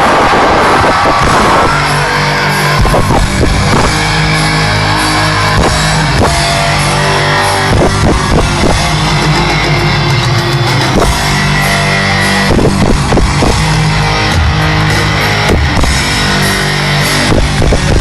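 Loud rock music with electric guitar and drums, with a burst of noise in the first second or so.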